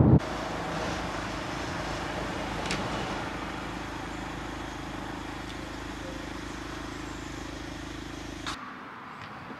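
Steady hum of a car idling, heard from inside the cabin. Near the end it cuts off abruptly to a quieter background.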